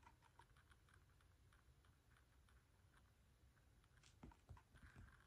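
Near silence: room tone with faint small clicks and taps, a few a little louder about four to five seconds in.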